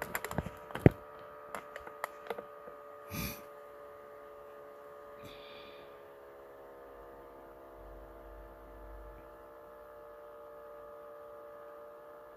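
Steady whine of an HP Pavilion dv6 laptop's cooling fan, a noisy fan that needs oiling. A few sharp clicks and knocks sound in the first three seconds.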